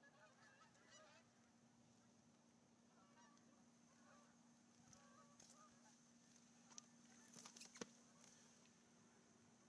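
Near silence over a steady low hum, with short faint honking bird calls in the first second and again a few seconds in, and a few faint clicks near the end.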